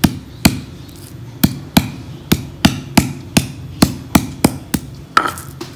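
Stone pestle (ulekan) striking a volcanic stone mortar (cobek), pounding galangal to bruise it for a spice paste: a run of sharp stone-on-stone knocks, about two or three a second, a dozen in all.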